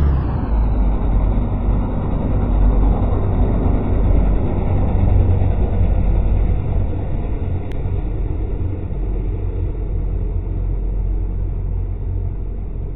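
Highway traffic going by: a steady low rumble of engines and tyres, louder as a truck passes around the middle.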